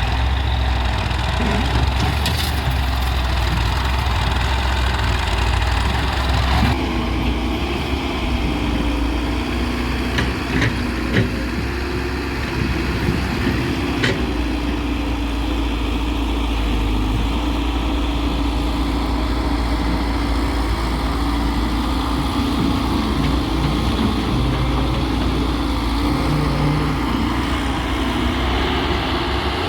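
Diesel engine of a wheeled excavator working, steady and loud, its note shifting about seven seconds in, with a few sharp knocks between about ten and fourteen seconds in.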